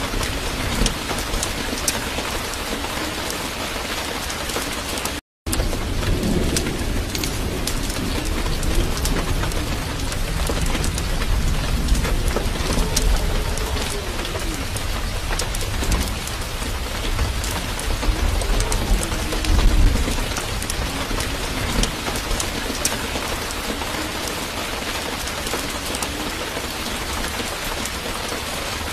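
Steady rain pattering, with low rumbles of thunder, one heavier around two-thirds of the way through. The sound drops out completely for a moment about five seconds in.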